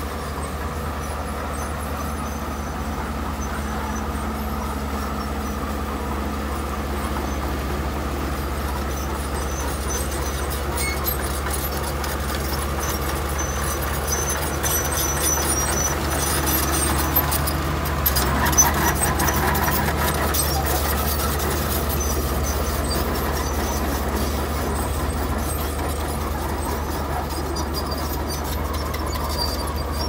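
Heavy earthmoving machinery, a bulldozer's diesel engine running steadily as a low drone. It swells for a few seconds around the middle, with a couple of short knocks.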